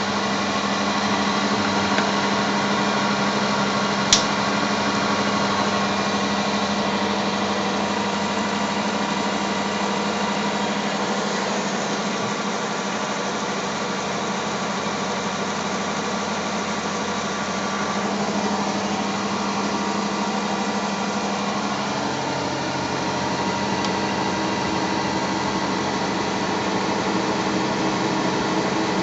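Electric motor driving a generator rotor at about 750 rpm, running steadily with a hum made of several steady tones. There is a sharp click about four seconds in, and the hum's low tone changes about 22 seconds in.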